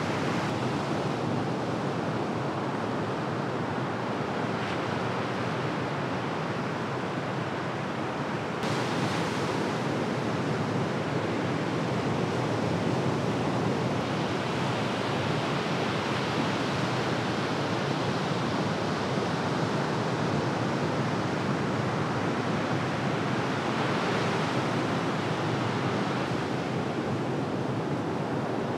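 Ocean surf breaking and washing ashore, a steady noise without a break.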